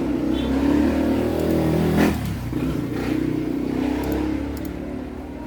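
A motor vehicle engine running, briefly louder about two seconds in.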